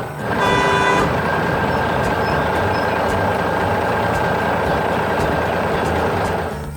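Heavy truck engine running steadily, with a short horn toot about half a second in.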